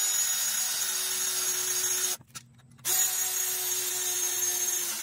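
Cordless drill boring a screw hole through a chrome motorcycle exhaust pipe with a steady motor whine. It stops about two seconds in and starts again under a second later.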